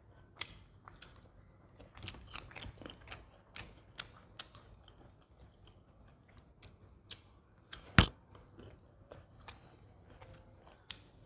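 Chewing and biting sounds of people eating mango slices and doughnut: a string of short, irregular mouth clicks and smacks, with one sharp, much louder click about eight seconds in.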